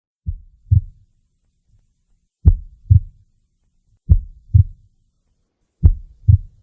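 Heartbeat sound effect: four slow lub-dub double beats, low dull thumps with a pause of well over a second between each pair.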